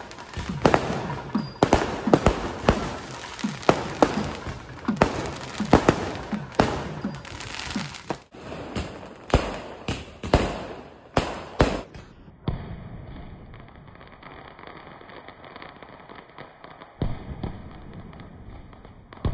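Aerial fireworks bursting: rapid, irregular loud bangs and crackling pops, several a second. About twelve seconds in they turn much fainter, with only scattered pops.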